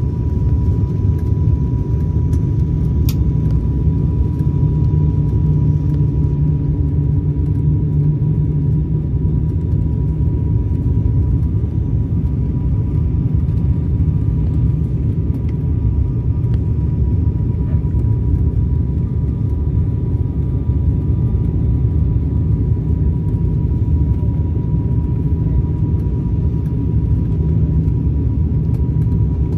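Airliner cabin noise on approach to landing: a steady, loud low rumble of the engines and airflow, with a thin steady whine running through it.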